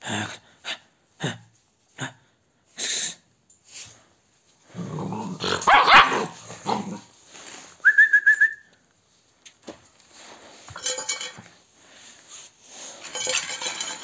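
Agitated dogs, just after a fight: a run of short sharp huffs, then a loud growling bark about five seconds in and a brief high whine near eight seconds, followed by scuffling noises.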